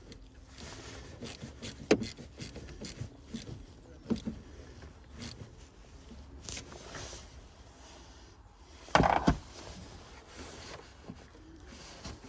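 Hand work at a car battery while fitting a kill-switch relay and its cables: scattered clicks, taps and rubbing of tools and parts, with a sharp knock about two seconds in and a louder knock about nine seconds in.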